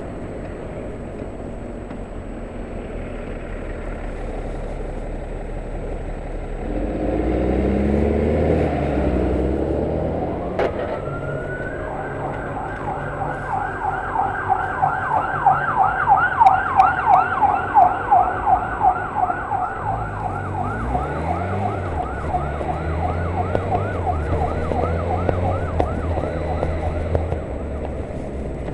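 Emergency vehicle siren in fast yelp mode, sweeping up and down several times a second. It starts with a single rising wail about ten seconds in, is loudest in the middle, and fades near the end. Underneath are wind noise and a motorcycle engine climbing through the revs twice.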